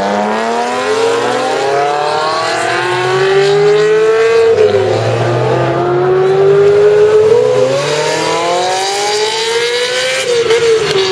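Ferrari sports car engine accelerating hard, its note climbing and dropping back at each of about three upshifts.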